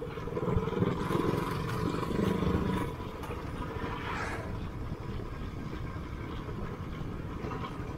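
Royal Enfield Classic 500's single-cylinder engine running through an aftermarket Raw Sound Company exhaust while riding on the highway: a steady low rumble, a little louder for the first three seconds.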